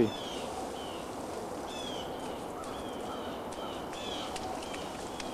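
Small birds chirping: a string of short, high chirps about every half second, over a steady outdoor hiss.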